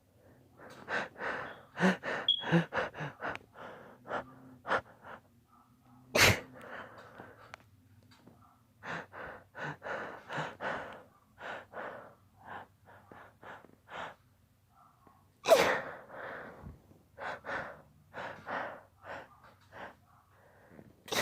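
A person's held-back sneezes: two sharp sneezes, one about six seconds in and one about fifteen seconds in, with runs of short, quick gasping breaths around them as each sneeze builds.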